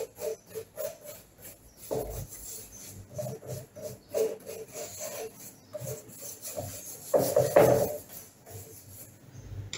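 A brush scrubbing wax over a painted wooden board in quick, short strokes. A louder scrape comes about seven and a half seconds in.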